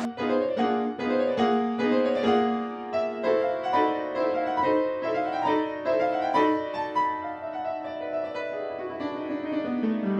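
Solo piano music: a melody of single notes over held chords at a slow, even pace.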